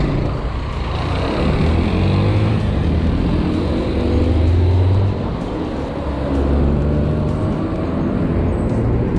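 Street traffic dominated by a nearby motor vehicle engine speeding up: its pitch climbs for a few seconds, drops about five seconds in, then climbs again.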